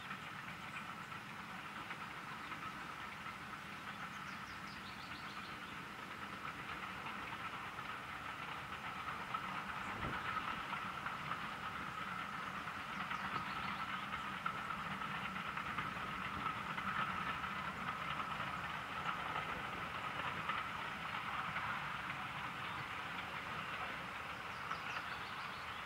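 LNER V2 2-6-2 steam locomotive 60800 'Green Arrow' and its coaches running past on the rails, a steady train noise that grows louder through the middle and eases near the end, with a single knock about ten seconds in.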